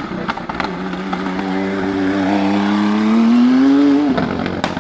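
Norma M20 SF hillclimb prototype's twin-turbo V6 (a Nissan VR38DETT) under full acceleration: one engine note climbing steadily in pitch for about three seconds, then cutting off sharply about four seconds in. Sharp bangs and crackles from the anti-lag system come at the start and again near the end.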